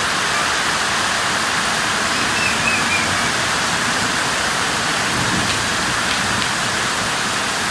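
Heavy rain pouring down in a steady, unbroken rush.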